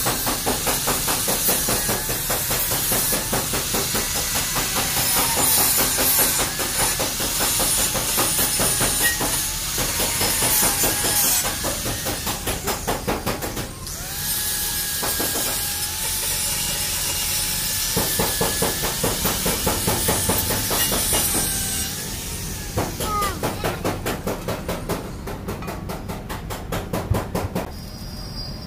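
Hand-held angle grinder running against a metal bumper rod, a loud hissing grind with a motor whine that wavers in pitch as the load changes.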